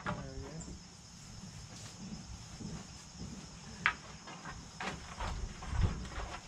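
Crickets chirring steadily, with a few sharp wooden clacks as tobacco sticks are picked up off the ground.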